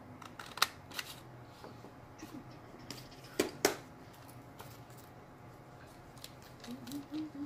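Paper being cut out by hand: a few sharp snips and clicks, the loudest a quick pair about three and a half seconds in, with a short run of lighter clicks near the end.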